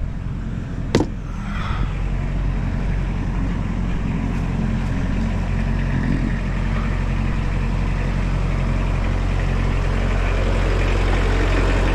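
Tractor engine running steadily, with a sharp click or knock about a second in.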